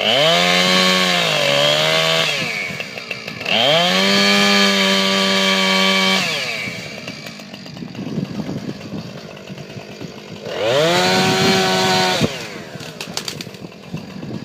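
Two-stroke chainsaw revved up to full throttle three times, each burst lasting about two seconds, dropping back to a rough low running between. In the first burst the engine note sags briefly, as when the chain bites into wood, here cedar logs being cut.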